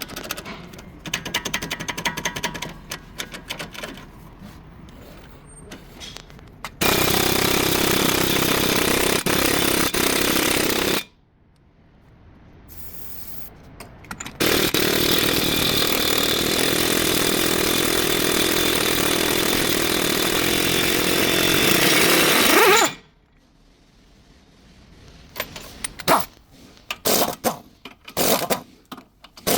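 A power tool running in two long, loud bursts of several seconds each, the second winding down in pitch as it stops. Before and after, metal tools clatter and knock against car parts.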